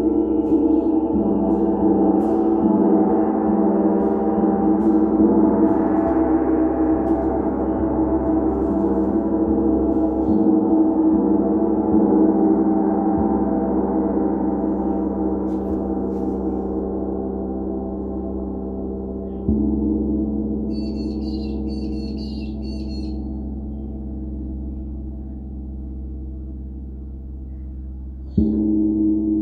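Gong ringing with many sustained overtones, slowly fading, struck again about twenty seconds in and once more near the end.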